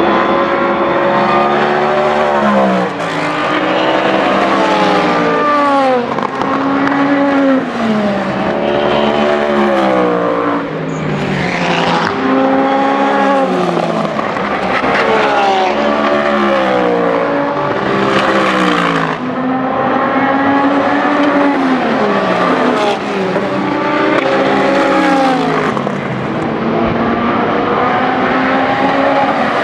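Race car engines running hard as several cars pass one after another, their notes repeatedly dropping and rising in pitch, with no pause between cars.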